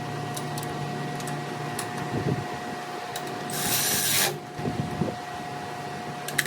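Steady mechanical hum with a few light tool clicks and knocks, and a short loud hiss of spray or air about three and a half seconds in, lasting under a second.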